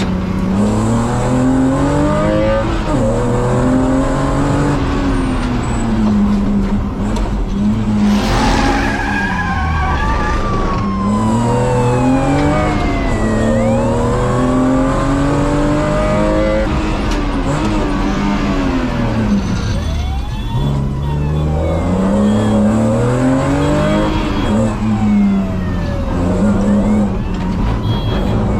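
Car engine accelerating hard, its pitch climbing and dropping again and again through gear changes as the car speeds through a chase. From about seven seconds in, higher rising and falling wails and squeals join it, a police siren and tyre squeals in pursuit.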